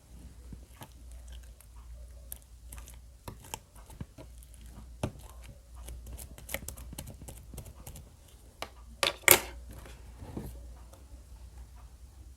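Clear slime being squished and stretched by hand: a run of small sticky clicks and crackles, with two louder pops close together later on.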